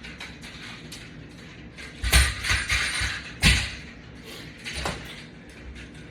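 Metal exercise hardware being handled: a cluster of clanks and rattles about two seconds in, a single sharp knock a little later, and a smaller clink near the end.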